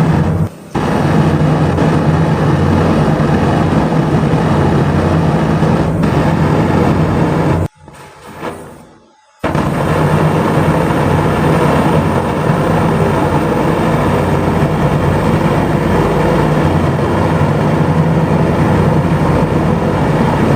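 Aerosol spray ignited by a match flame, a jet of fire burning with a loud, steady rushing noise. It cuts out for a moment about half a second in and again for nearly two seconds around eight seconds in, when the spray is let off, then comes back as loud as before.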